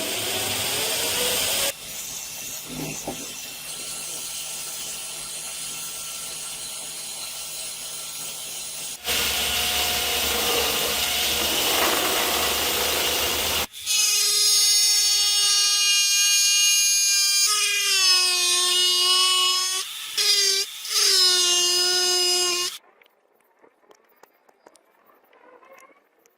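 Electric power tools running in a series of short, abruptly cut sections of steady machine noise. In the last section a motor whines at a high pitch that dips a few times before it stops, leaving near silence.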